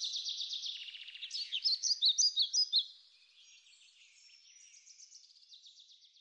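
Small songbirds singing: rapid high trills, then a run of sharp, louder chirps from about one and a half to three seconds in, easing back to fainter trills.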